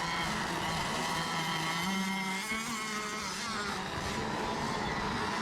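Several radio-controlled racing boats running at once on the water. Their high-pitched motor whines overlap and waver up and down in pitch as the boats circle.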